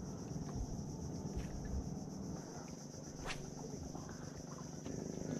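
Steady high-pitched drone of insects. Beneath it runs a low rumble, and there is one sharp click a little past three seconds in.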